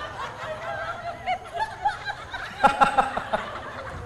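Audience laughing and chuckling, with a louder burst of laughter about two and a half seconds in.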